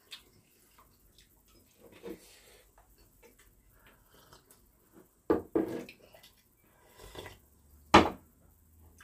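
Eating and drinking at a table: scattered soft clicks of chopsticks and ceramic bowls, with sipping and slurping. A sharp knock of a ceramic bowl on the wooden table about eight seconds in is the loudest sound.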